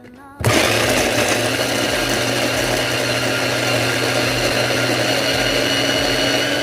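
Electric blender switching on about half a second in and running steadily, blending spices for a marinade.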